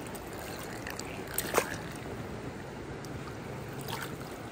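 Steady rush of flowing river water, with a brief sharp knock about a second and a half in.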